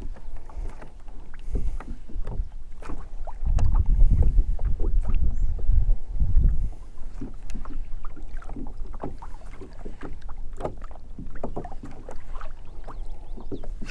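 Small waves lapping and slapping against a plastic kayak hull, with scattered ticks and knocks. A gust of wind rumbles on the microphone for a few seconds near the middle.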